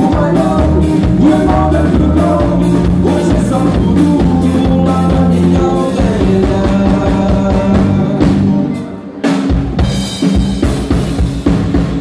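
Live band playing with accordion, electric guitars and a drum kit keeping a steady beat, with singing. About nine seconds in the band drops out for a brief break, then comes back in.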